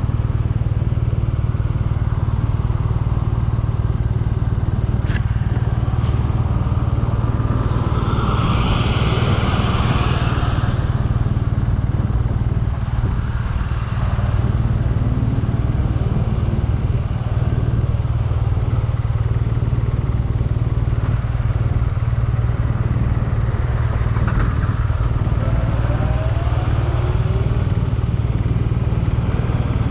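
BMW R nineT Urban G/S's 1170 cc boxer-twin engine running on the move, a steady low drone throughout. There is a short click about five seconds in and a brief hiss around eight to ten seconds in.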